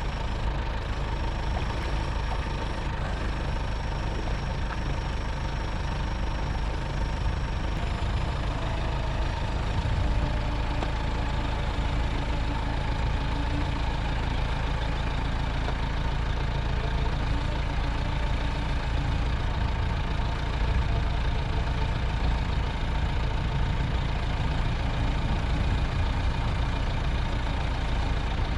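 Fishing boat's engine running steadily under way, an even, unbroken drone with a faint high whine that stops several seconds in.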